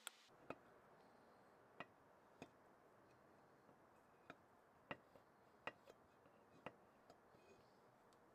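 Faint, irregular metallic clicks, about eight or nine, as the crank case cover and the crank and connecting rod inside a vintage Craftsman scroll saw are handled and shifted.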